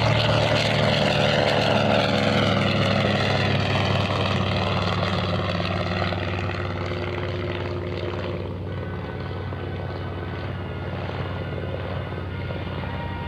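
TBM Avenger's Wright R-2600 radial engine at full power as the aircraft takes off, loud at first, then fading with a slight drop in pitch as it moves away.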